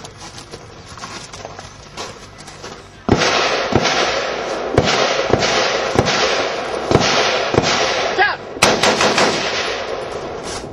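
AR-15 carbine firing a string of single shots, starting about three seconds in, roughly one every half to one second, over a loud rushing noise that fades near the end.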